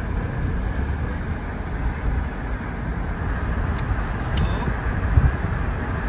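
Steady road and tyre noise of a moving car, a low rumble with a hiss above it.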